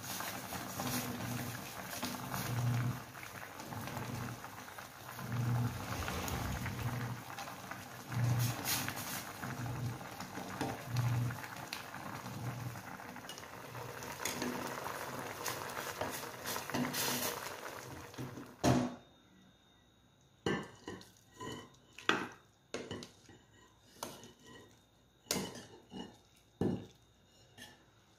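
A steel pot of soup with instant noodles at a full boil, a steady bubbling hiss with a low throb about every second and a half. After a sudden cut about two-thirds of the way in, a metal ladle clinks and knocks against the pot and a bowl as the soup is ladled out.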